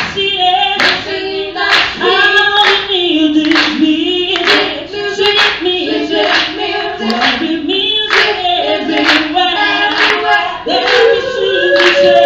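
Female vocal group and a chorus of voices singing a 1960s girl-group song in harmony, with hand claps on the beat about once a second.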